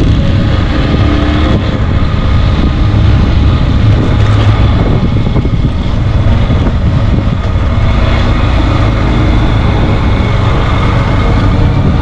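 Motorcycle engine running steadily under way, heard from the rider's own bike over a steady rush of wind and road noise.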